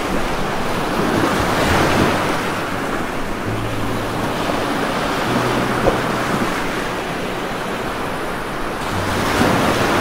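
Steady rain falling on leafy foliage, a dense, even hiss of raindrops with no let-up.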